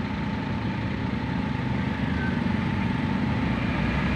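Toyota Wigo 2018 engine idling steadily. The car has a check-engine light on and a cylinder 2 misfire code (P0302).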